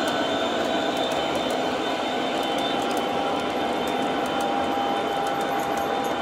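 O gauge model freight train rolling past on its track: a steady rumble of wheels on the rails, with a thin steady whine and faint scattered clicks.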